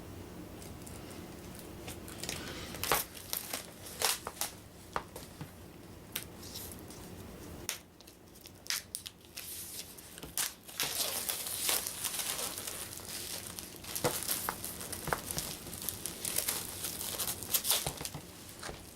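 A game box's packaging being opened by hand: wrapping torn and crinkled, with scattered clicks and rustles, the crinkling getting thicker in the second half.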